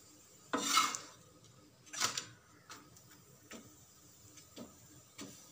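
A perforated metal spatula scrapes and taps on a pan while pressing a chapati as it cooks. There is a louder scrape about half a second in and another about two seconds in, then a few light taps.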